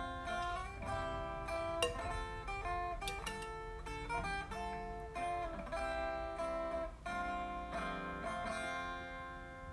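Background music: a plucked-string melody of separate notes that grows softer near the end and stops.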